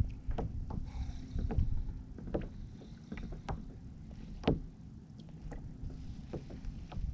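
Small waves lapping and slapping against a fishing kayak's hull, heard as a low rumble with irregular light knocks; the sharpest comes about four and a half seconds in.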